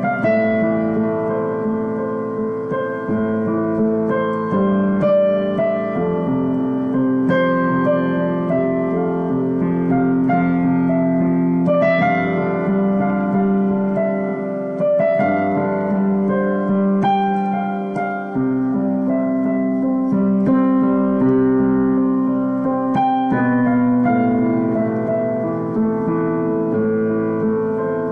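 Solo piano improvising slow, sustained chords, with a new chord struck every two to three seconds, recorded on a mobile phone.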